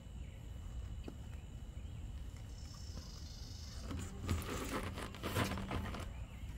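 An Audi Q7 road wheel being worked onto its hub by hand: a short cluster of knocks and scrapes between about four and six seconds in, over steady outdoor background noise.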